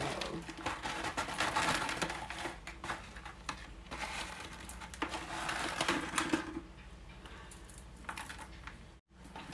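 Small white decorative pebbles clicking and rattling as they are tipped from a plastic bag and spread by hand over the soil of a potted snake plant, with the bag crinkling. The clicking is busiest for the first six seconds or so, then thins out.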